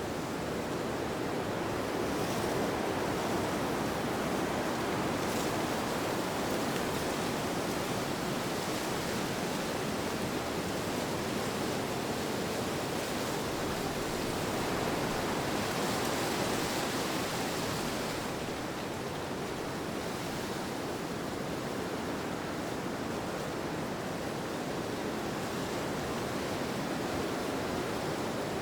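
Steady rushing wind, an even noise with no pauses, its hiss growing brighter for a few seconds just past the middle before settling again.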